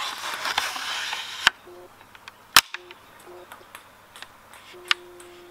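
Handling of a homemade MDF rubber-band ping pong ball shotgun: a scraping rustle ending in a click, then a sharp loud snap about two and a half seconds in, followed by a few lighter clicks of the wooden mechanism.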